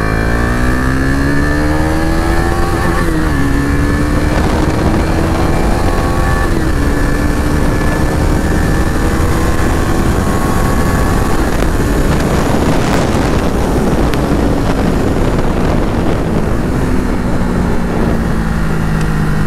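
KTM Duke 250's single-cylinder engine, exhaust open with the dB killer removed, accelerating hard through the gears: the note climbs and drops back at each upshift. Wind noise builds at speed in the middle, then the engine note falls steadily as the bike slows.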